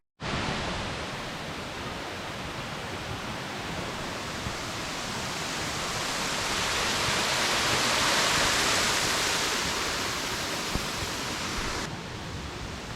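Steady rush of falling water from a mountain-stream waterfall, swelling louder through the middle and dropping suddenly to a quieter level near the end.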